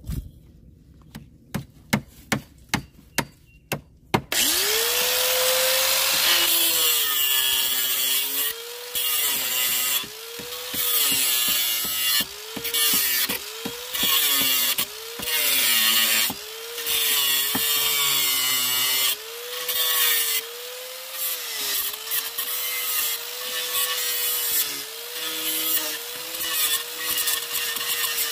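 A run of about eight sharp knocks. Then an electric angle grinder starts about four seconds in and spins up to a high whine. Its pitch dips and recovers repeatedly as it bites into metal, cutting off protruding nails in a wooden pallet.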